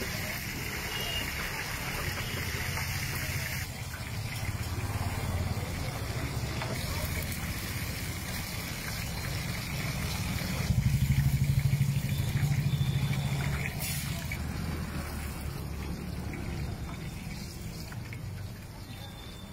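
Masala-coated fish pieces shallow-frying in oil on a large flat tawa, sizzling steadily. A low rumble swells about halfway through.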